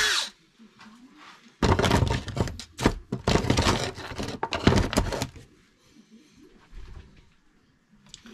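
Clunks and knocks of a cordless drill and a metal part being handled at a workbench vise, a close run of them from about one and a half to five seconds in, then a few fainter knocks.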